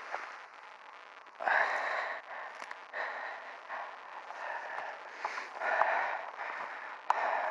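A person breathing heavily and unevenly, with loud breaths about every second and a half.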